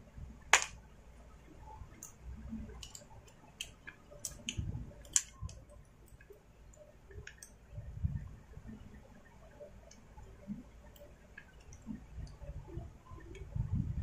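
Scattered light clicks and taps of small metal and plastic parts being handled as a carburettor and throttle linkage are fitted by hand on a Stihl chainsaw, with a few soft low bumps. The sharpest click comes about half a second in.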